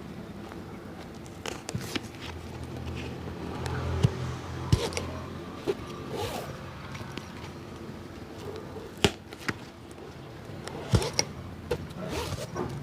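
Hand work on a shoe at a street cobbler's: scattered sharp taps and knocks, the loudest three at about 4.5, 9 and 11 seconds in, with lighter scraping between, over a low steady hum.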